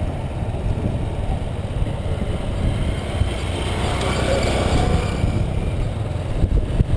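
Small motorcycle taxi engines running while riding, heard as a steady rumble mixed with wind and road noise.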